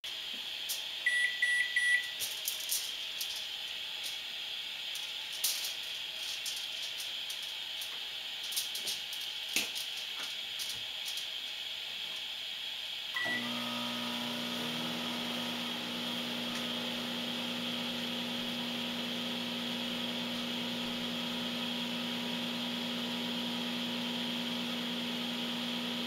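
Microwave oven keypad beeping in a short quick series, then light taps and knocks from handling. After one more beep the oven starts and hums steadily while it runs.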